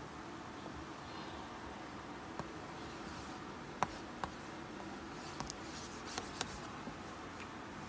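Plastic stylus tapping and drawing on an LCD writing tablet's screen: a few faint clicks and light scratching over a low hiss.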